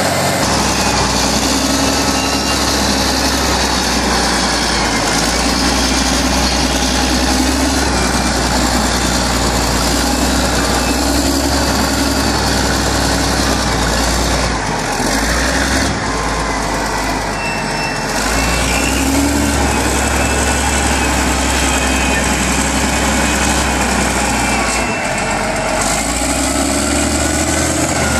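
Caterpillar 980B wheel loader's diesel engine running loud and steady, its pitch rising and falling as the loader raises and works its bucket.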